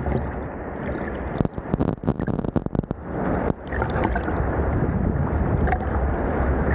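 Sea water sloshing and splashing around a camera held at the surface while swimming through choppy water, with a run of sharp crackles about one and a half to three seconds in.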